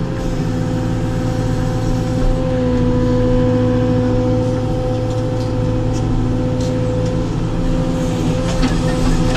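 Caterpillar 432F2 backhoe loader's diesel engine running under load with a steady hydraulic whine as the backhoe boom is swung and lifted, heard from inside the cab. A few faint knocks near the end.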